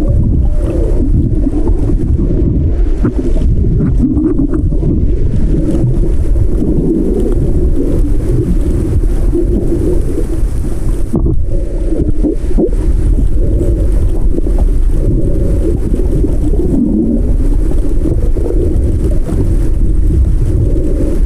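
Muffled underwater sound picked up by an action camera in its waterproof housing: a steady, loud low rumble of moving water, with almost nothing in the higher pitches.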